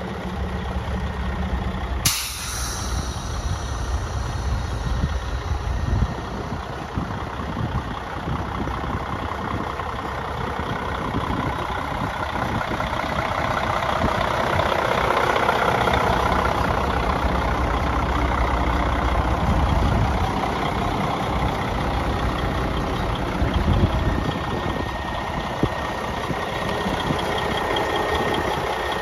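Mercedes-Benz diesel engine of a 2005 Sterling day-cab truck idling steadily, with a sudden sharp hiss about two seconds in.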